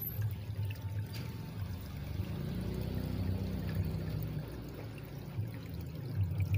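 Water sloshing and trickling in a shallow plastic tub as hands stir through it, grabbing at koi fry, over a low rumble.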